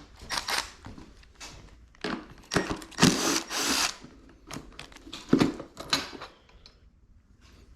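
Tools working loose an 8 mm bolt holding a dirt bike's airbox: scattered metal clicks and clatter with a few short bursts of noise, the longest and loudest about three seconds in.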